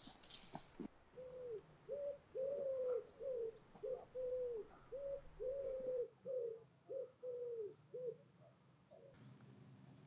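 A pigeon cooing: about a dozen arched coos in a repeating pattern of short and drawn-out notes, ending about eight and a half seconds in.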